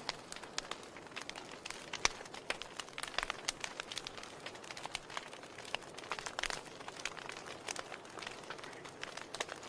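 Wood fire crackling in a fireplace: a steady low hiss with frequent sharp, irregular pops and snaps, one louder pop about two seconds in.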